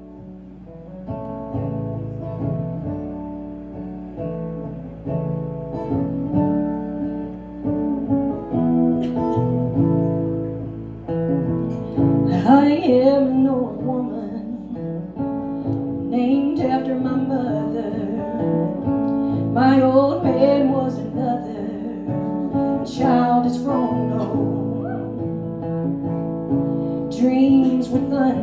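Instrumental intro on acoustic guitar: slow, steadily held chords, joined about twelve seconds in by a lead line of bent, wavering notes that returns every few seconds.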